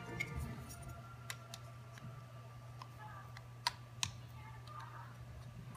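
Scattered light clicks and taps, with two sharper knocks a little past the middle, over a faint steady low hum.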